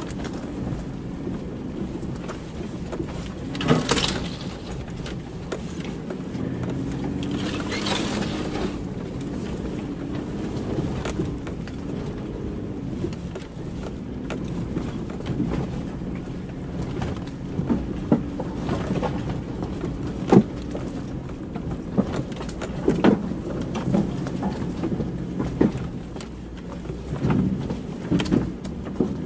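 Vehicle engine running at low speed as it crawls over a rough forest track, its pitch drifting up and down a little. Occasional knocks and thumps from the vehicle jolting over bumps.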